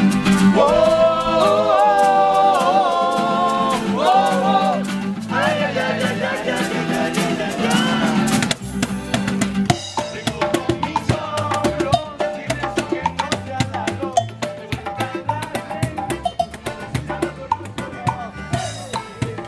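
Latin music with singing and percussion: a voice holds long, wavering notes for the first eight seconds or so, then a drum-led rhythm takes over with shorter sung phrases.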